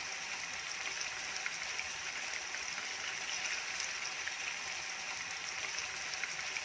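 Marinated chicken pieces deep-frying in hot oil in a kadai: a steady sizzle with fine crackles.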